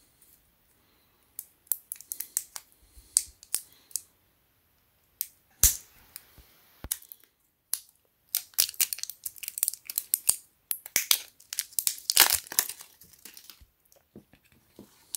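Thin plastic crinkling and crackling in irregular bursts as fingers pick and peel at the plastic seal on a new 9-volt rechargeable battery.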